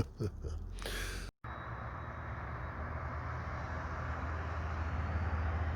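A vehicle running, a steady low rumble under an even hiss, which cuts in abruptly about a second in after a momentary dropout.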